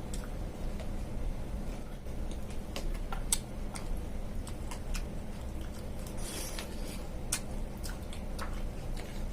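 Close-miked eating of a mixed fruit and sabudana dish: wet, squishy chewing with scattered small clicks and a brief hiss about six seconds in, over a steady low hum.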